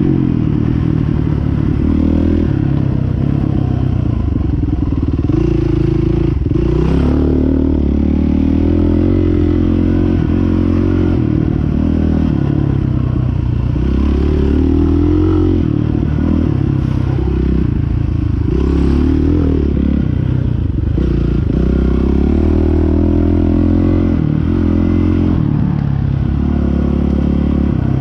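Dirt bike engine heard from the bike's own onboard camera while riding a rough trail, the engine note rising and falling in steps as the rider works the throttle and changes gear.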